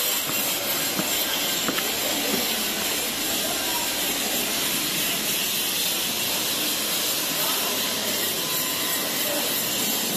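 Steady loud hiss with faint, indistinct voices beneath it.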